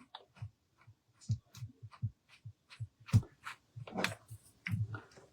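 Irregular clicks and light knocks of tools and small objects being handled and set down on a work table, several a second, with a brief scraping rustle about four seconds in.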